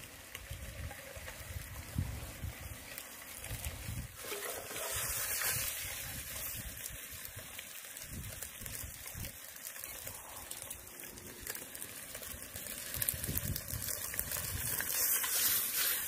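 Peeled boiled eggs frying in a little oil with turmeric in an aluminium pot over a wood fire: a steady sizzle, with occasional clicks and scrapes as a metal skimmer stirs them.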